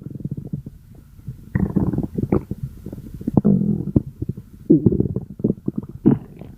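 A person's stomach growling: irregular gurgling rumbles with crackly pops, coming in several bursts about a second apart.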